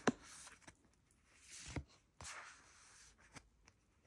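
Tarot cards being handled and leafed through: soft rubbing and sliding of card against card, with a few light taps.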